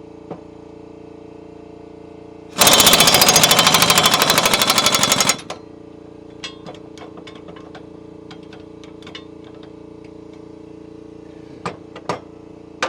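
Pneumatic impact wrench hammering on a riding mower's blade nut in one burst of about three seconds, starting a couple of seconds in. The owner thinks the compressed-air supply has run low. A few light metallic clicks and knocks follow.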